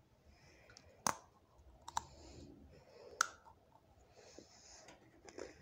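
Animal crackers being crunched and chewed close to the microphone, a faint crackle broken by three sharp clicks about one, two and three seconds in.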